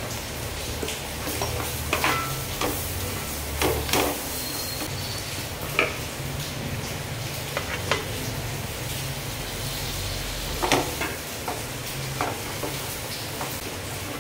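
Masala sizzling in oil in a metal pot as tomato and cauliflower pieces go in and are stirred with a spatula. A steady frying hiss runs throughout, broken by scattered scrapes and knocks of the spatula and vegetables against the pot.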